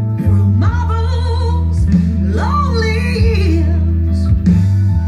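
A song played loud through a large sound-system speaker stack under test: a singing voice with long wavering held notes over heavy, steady bass and guitar.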